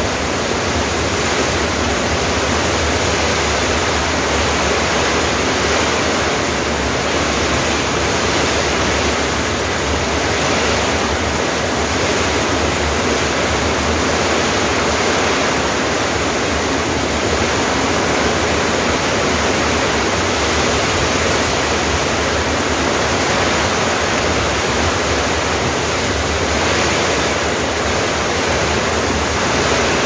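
Heavy downpour: rain falling in a steady, unbroken hiss, with water pouring off a roof edge and splashing onto glazed earthenware jars and brick paving below.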